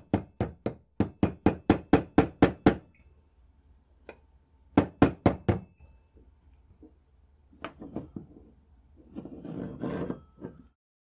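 Hammer tapping a steel pin punch to drive the floor plate release pin into a Mauser 98 trigger guard. A quick run of about a dozen light, ringing taps at about five a second, then a short run of four more taps about two seconds later. A softer scraping noise comes near the end.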